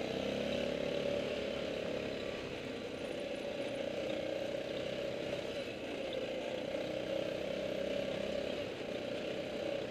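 Yamaha ATV engine running steadily as the quad travels along a dirt trail, its note holding at a fairly even pitch.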